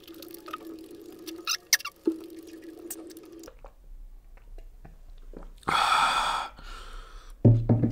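Close-miked mouth sounds: chewing momos with a low 'mmm' hum and wet clicks for the first three seconds or so, then quiet gulping of cola. About six seconds in comes a loud breathy 'aah' exhale after the drink.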